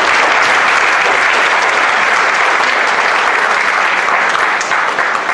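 Audience applauding: dense, steady clapping that holds at full strength throughout.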